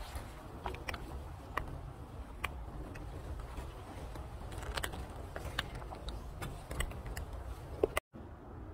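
Rhesus macaques crunching dry corn kernels and picking them out of the leaf litter: irregular sharp clicks and crunches over a low rumble, cutting off abruptly near the end.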